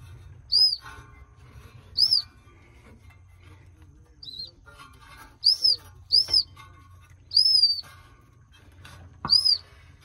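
A top-dead-center whistle in a spark plug hole of the 1971 International truck's engine, giving seven short toots that rise and fall in pitch, about one every second or so, as the engine is turned over by hand in short pulls, with light clicks and knocks alongside. The whistling means the piston is coming up on the compression stroke.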